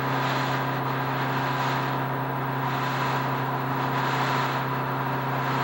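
Steady drone of machinery on an airport ramp: a low hum and a steady whine, with a hiss that swells and fades about every second and a half.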